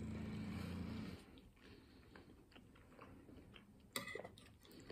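A person eating mantı with a spoon: a low steady hum that stops about a second in, then soft chewing with small clicks, and a short clink of the spoon on the plate about four seconds in.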